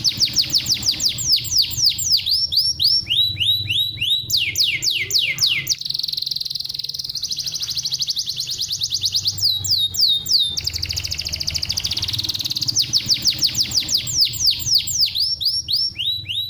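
Domestic canary singing fast, rolling song: runs of quick descending whistled notes, several a second, alternating with steady buzzing trills, a tutor song of the kind played to get other canaries singing.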